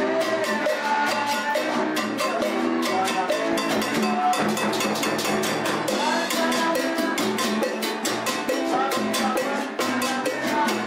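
Live band music driven by congas and timbales with a cymbal, keeping a steady quick rhythm under sustained pitched instruments.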